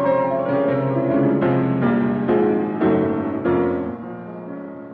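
Piano music: a slow melody with notes and chords struck about twice a second, fading away near the end. The sound is dull, with no treble, as on an old 1950 radio transcription recording.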